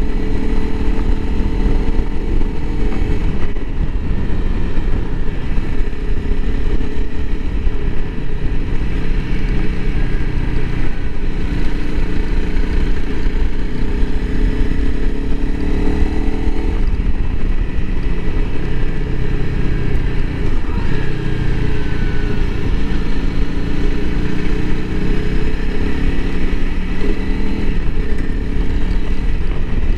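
Honda CRF300L Rally's single-cylinder four-stroke engine running under way, its pitch climbing slowly several times and dropping back, over a constant low rumble.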